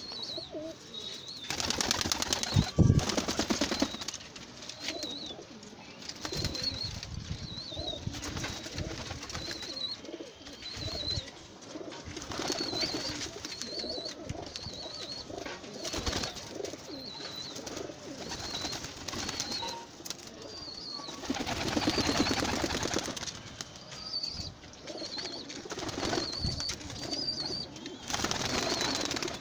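Domestic pigeons cooing softly in a coop, with a few bursts of wing flapping. A short high chirp repeats about once a second throughout.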